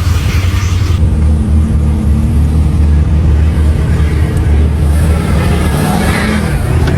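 Loud engine running with a steady low rumble.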